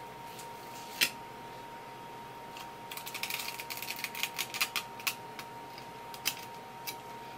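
Kitchen knife crackling and clicking along the bones of a suma (mackerel tuna) as it is filleted: one sharp click about a second in, then a quick run of crackling for about two seconds, and a few more clicks. A faint steady hum lies underneath.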